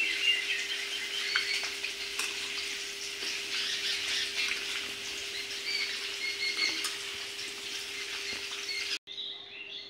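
Raw chicken being squeezed and mixed by hand with spice pastes and mustard oil in a steel bowl: a continuous wet squelching. Short bird chirps sound now and then in the background, over a faint steady hum.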